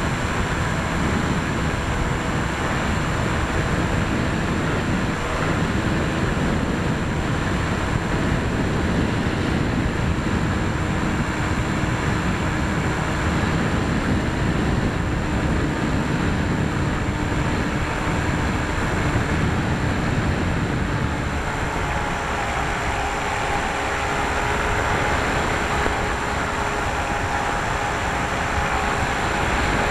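Wind rushing over the onboard camera microphone of a flying EPP foam FPV plane, mixed with the faint whine of its electric motor and propeller. About two-thirds of the way through the motor's pitch shifts lower.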